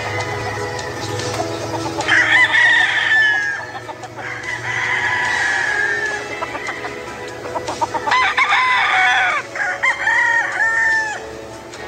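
Gamecock crowing: long calls about two seconds and four and a half seconds in, then a quick run of short calls and two brief arched calls near the end.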